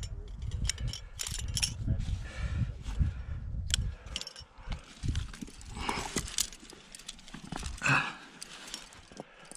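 Metal climbing gear clinking as a quickdraw is clipped into a cam placed in a granite crack, over a low rumble. Scattered sharp clicks and scrapes follow as the climbing goes on.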